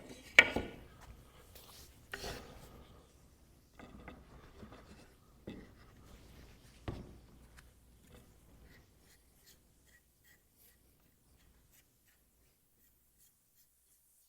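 Hand work at a woodworking bench during a glue-up: a few knocks of wooden parts or clamps being set down, with light rubbing and scraping between them. It trails off to near quiet about two-thirds of the way through.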